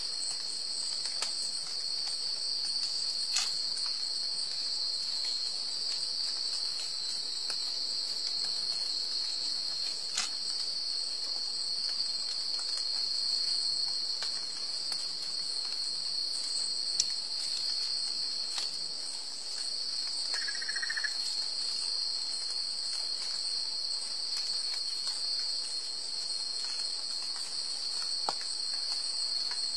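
Steady, high-pitched insect chorus, with a few faint clicks and one brief chirp about twenty seconds in.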